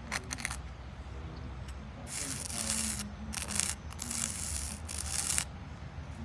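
Red plastic spoon rubbed over coloured sand on a sand-art card, giving several scratchy, hissing strokes from about two seconds in to about five and a half seconds in. A few light clicks come at the start.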